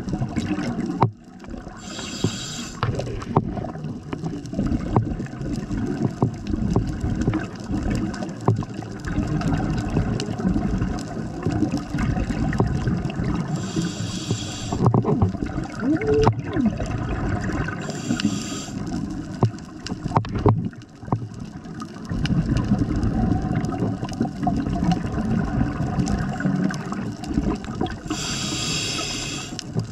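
Scuba regulator breathing heard underwater: four short hissing inhalations, about 2, 14, 18 and 28 seconds in. Between them is a constant low bubbling rumble of exhaled air and water.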